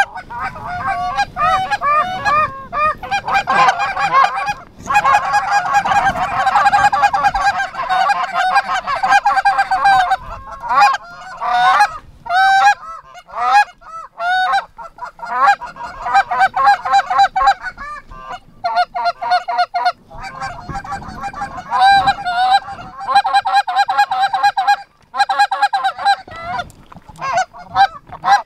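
Canada goose honking and clucking, with many loud calls overlapping almost without pause and a few brief breaks.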